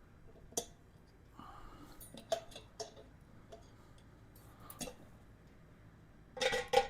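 Scattered clicks and knocks from loosening the cones on a motorcycle wheel balancer stand and handling the wheel, with a louder cluster of knocks near the end.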